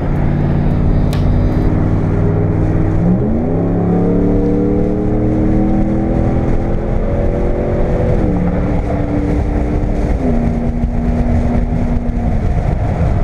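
Straight-piped Ram pickup engine heard from inside the cab under acceleration. The revs jump sharply about three seconds in as the transmission kicks down, hold while it pulls, then step down twice as it upshifts, with road noise underneath.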